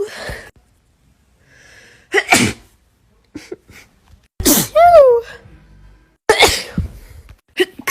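A woman sneezing from allergies, three sneezes in quick succession. The middle one is the loudest and ends in a drawn-out voiced cry that rises and falls in pitch.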